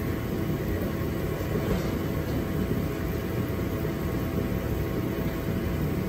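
Shop heater running: a steady low rumble with a faint constant hum.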